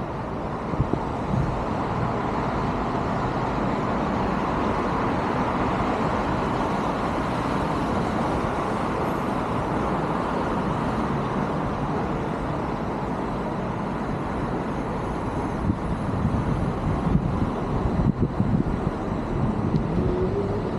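Steady road traffic noise, with irregular low thumps over the last few seconds.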